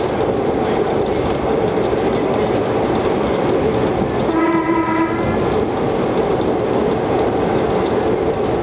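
1920s CPH 'Tin Hare' railmotor running along the track, its engine and wheel noise steady throughout. It gives one short horn blast of under a second about halfway through.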